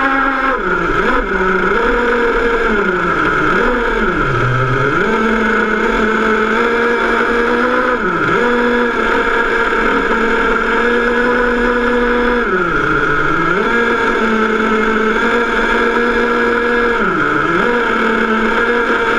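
Offroad RC car's motor running at a steady high pitch, the pitch dropping and climbing back briefly about six times as the throttle is eased and reopened.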